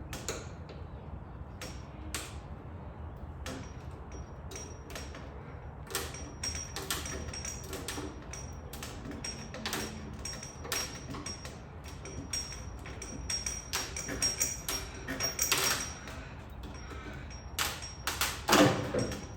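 Old, rock-hard perished rubber Bailey channel (door glass-run channel) being pried and pulled out of a car door frame with a screwdriver: irregular clicks, scrapes and small cracks, growing busier, with the loudest knock and crack about 18 seconds in as the channel comes free.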